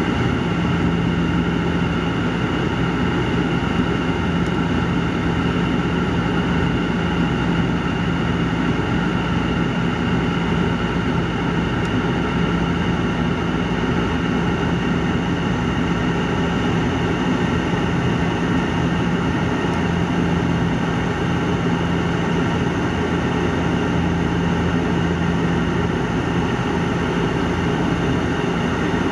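Steady drone of a Bombardier Dash 8-400 turboprop airliner in flight, heard inside the passenger cabin: an even rushing noise with a constant low hum from the propellers, unchanging throughout.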